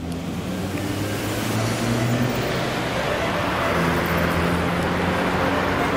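Road traffic noise: a steady wash of passing cars that swells about two seconds in, with low steady tones underneath.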